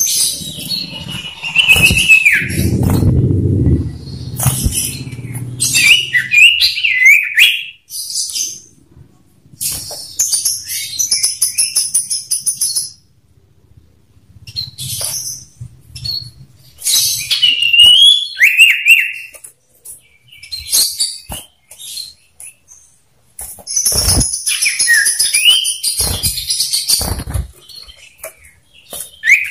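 Male common ioras calling against each other in a cage: bouts of rapid, high chattering trills mixed with sharp whistled notes that slide down in pitch. A low fluttering rumble a few seconds in, and a few sharp clicks near the end.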